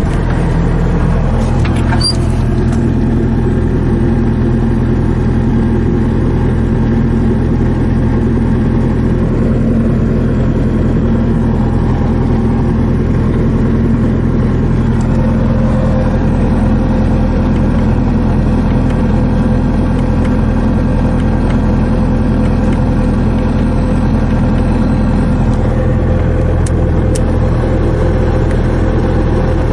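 Diesel engine of a 2009 Bobcat T190 skid steer running steadily at a constant speed. A higher steady whine joins about halfway through.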